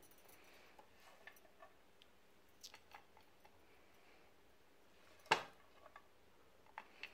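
Faint scraping and light ticks of a silicone spatula pushing cooked egg and chicken mince from a pan onto a plate, with one sharper knock a little past five seconds in.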